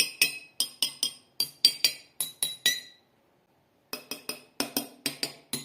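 Drinking glasses partly filled with water being tapped with a pen, clinking with short, high ringing tones. A quick run of about a dozen taps, a pause of about a second, then a second, softer run.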